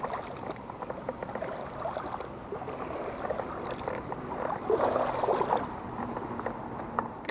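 Lake water splashing and lapping at the surface, with a louder flurry of splashing about five seconds in.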